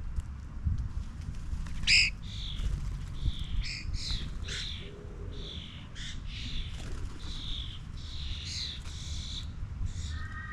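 Garden birds calling: a string of short chirps and squawks with a louder call about two seconds in, over a steady low rumble.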